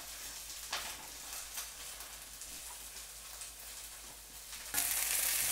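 Diced onion sizzling in a hot stainless steel sauté pan: a steady, fairly quiet hiss with a few small crackles. Near the end the sizzle suddenly gets louder.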